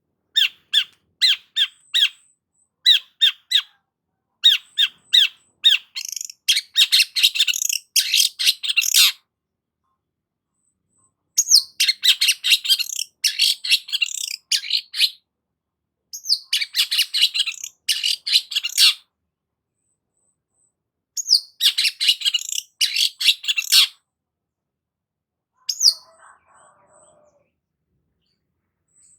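Long-tailed shrike (cendet) singing loudly: groups of short, sharp repeated notes, then dense bursts of rapid chattering song a few seconds long, separated by short pauses.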